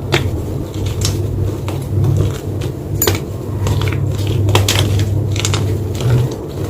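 White chalk being crushed by hand, crumbling with irregular crunches and several sharp snaps.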